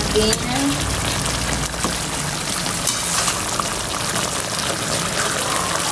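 Chicken pieces simmering in ketchup sauce in a wok, a steady bubbling sizzle.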